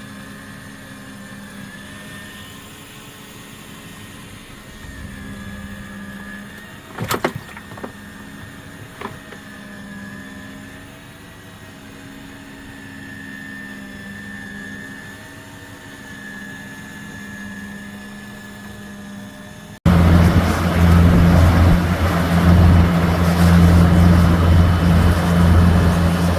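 A boat's engine running steady, faint and low at first with a couple of sharp knocks about seven and nine seconds in. After an abrupt cut near the end, the engine comes in much louder with a deep, steady drone.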